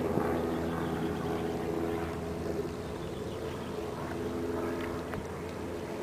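Steady hum with several held tones, the electric propeller motor of a YSI EcoMapper autonomous underwater vehicle running on the surface as it heads away; it grows a little fainter about halfway through.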